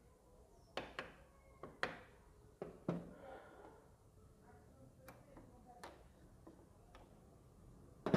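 Hand tools and engine parts clicking and knocking as a motorcycle engine is being taken apart: a quick run of about six sharp clicks near the start, then a few fainter, scattered ones.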